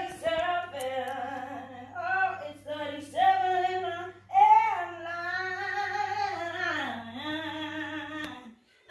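A voice singing a wordless melody in several phrases, with long held notes and a downward slide near the end. A steady low hum sounds underneath and stops shortly before the singing ends.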